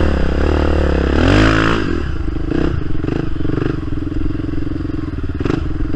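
Polaris Sportsman XP 1000 ATV's twin-cylinder engine revving up and back down about a second in, then running steadily, with repeated knocks and clatter.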